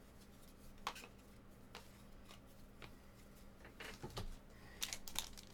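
Trading cards being handled and slid against each other, making faint scattered clicks. Near the end a denser crinkling of packaging starts up.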